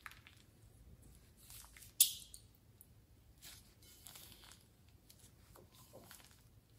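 Orange slime squeezed from a plastic piping bag into a bowl of slime: soft sticky squelches and plastic rustles, with one sharp crackle about two seconds in that is the loudest sound.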